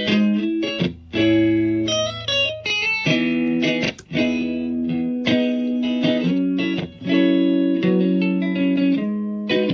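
Electric guitar played through a JOYO effects pedal: chords and short note runs ring out and are stopped every few seconds, with a fairly clean tone.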